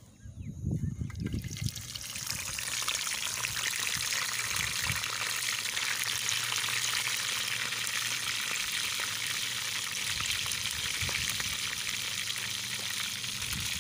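Whole fish sizzling as it fries in hot oil in a small camping pan. The sizzle builds up over the first two seconds, after a few low handling knocks, and then holds steady.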